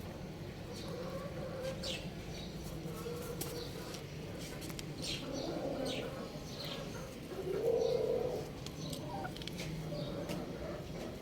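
Birds chirping: short, high chirps scattered throughout, with a louder, lower call about eight seconds in.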